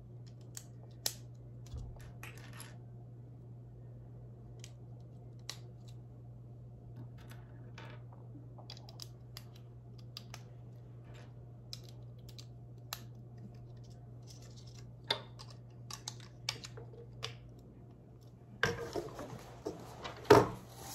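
Lego bricks being handled and fitted: scattered small plastic clicks and taps, then a louder stretch of rustling and clattering pieces near the end, over a steady low hum.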